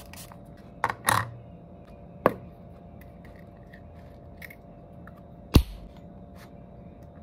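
Small handling clicks and knocks as a blood glucose testing kit is taken out of a zip pouch and set up on a table. A few scattered clicks come in the first seconds, and one sharp click about five and a half seconds in is the loudest, over a faint steady hum.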